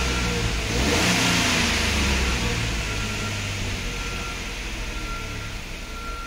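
2007 Chrysler Pacifica's 3.8-litre V6 running at about 2,000 rpm under a held throttle, heard inside the cabin. It swells about a second in, then grows gradually quieter.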